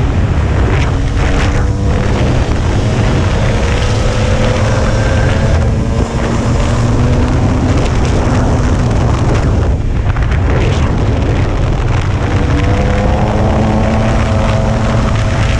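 Off-road vehicle engine running under way, its pitch climbing as it accelerates several times, most clearly about three seconds in and again near the end, under heavy wind buffeting on the microphone.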